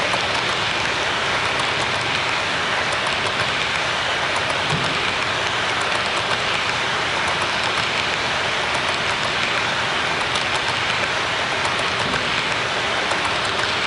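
HO scale model freight cars rolling past close by on their track: a steady rushing wheel noise with scattered light ticks.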